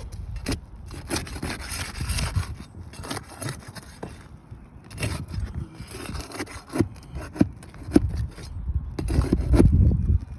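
Scraping and rubbing on asphalt roof shingles, with many sharp clicks and knocks as the shingles are worked for a repair. It comes in repeated swells and is loudest near the end.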